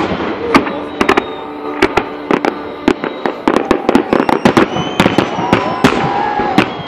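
Aerial firework shells bursting in a fast, irregular string of sharp bangs, several a second.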